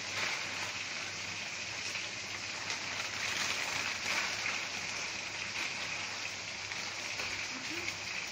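A large pot of broth at a rolling boil, bubbling with a steady hiss while canton noodles are dropped into it.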